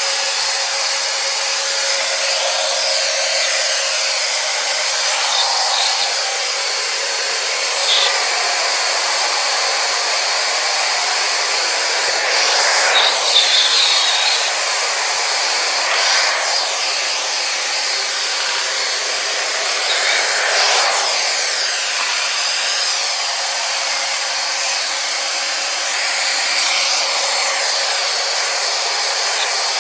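Xiaomi robot vacuum cleaner running: a steady whir of its suction fan with a few faint steady tones, swelling briefly several times as it moves about.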